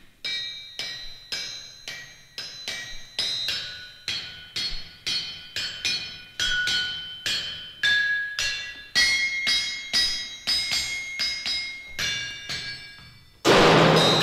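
Hammers striking anvils, about two to three blows a second, each leaving a ringing metallic tone whose pitch shifts from blow to blow. Near the end a sudden loud, noisy crash cuts in.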